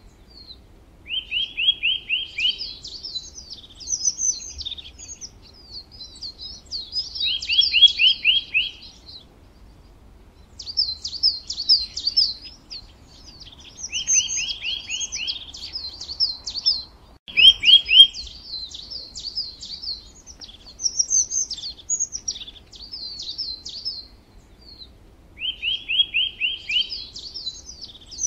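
Birdsong: a songbird repeating the same phrase every few seconds. Each bout is a quick run of five or six chirps followed by higher twittering. A single brief click sounds just past the middle.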